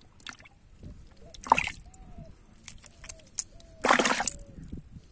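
Wet mud and water in a dug fish hole being sloshed and splashed: a short splash about a second and a half in, then a longer, louder slosh near four seconds.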